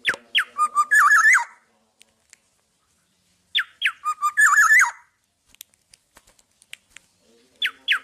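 Black-naped oriole (kepodang) singing: loud whistled phrases, each opening with a couple of quick notes sliding down and running on into a string of fluting, warbling notes. Two full phrases about three and a half seconds apart, a third starting near the end, with a few faint clicks between.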